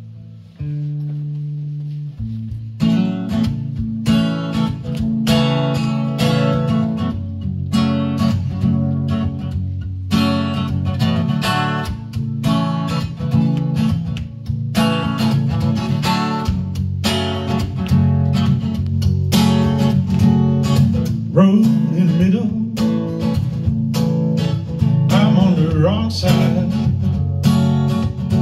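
Acoustic guitar playing a strummed instrumental intro: a few single notes and a held chord ring out at first, then steady rhythmic strumming of chords begins about three seconds in.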